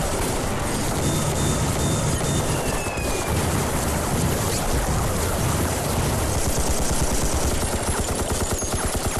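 Sustained gunfire: rifles and machine guns firing continuously in dense volleys, with a brief falling whistle about three seconds in.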